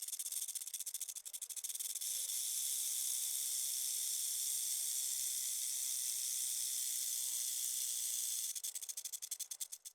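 Snake sound effect: a long, high hiss that flutters rapidly in its first two seconds and again in its last second and a half, then cuts off abruptly.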